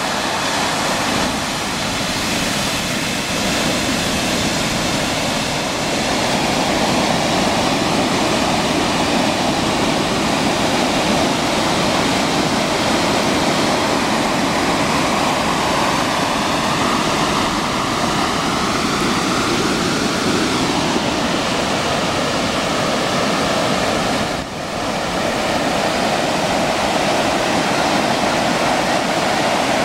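Ocean surf breaking on a sandy beach: a continuous rush of white water from several rows of waves washing up the sand, with a brief dip about three quarters of the way through.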